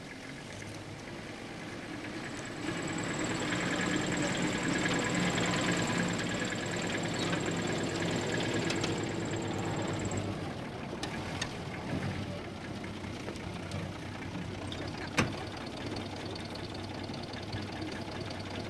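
An off-road vehicle's engine idling steadily, swelling a few seconds in and easing back about ten seconds in. A single sharp knock comes about fifteen seconds in.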